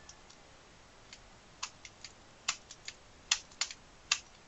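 A series of about nine irregular sharp clicks and taps, from about a second in, of small hard parts being handled during DVD player repair work.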